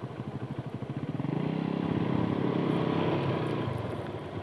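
Small motorcycle engine running close by, picking up revs and load about a second in as the bike pulls away, then easing off near the end.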